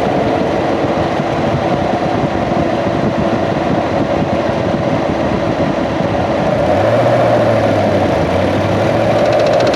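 A 2016 Corvette C7's 6.2-litre V8 running, heard from a microphone inside the engine compartment. It carries the mystery mechanical noise that the owner suspects comes from the fuel pump or fuel line, with the belt tensioner already replaced.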